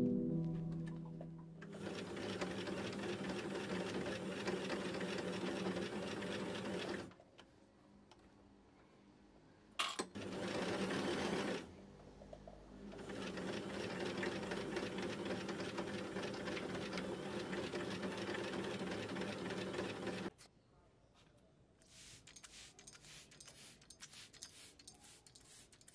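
Compact electric sewing machine stitching fabric, running steadily in three spells of a few seconds each, stopping in between. A click comes just before the short middle spell.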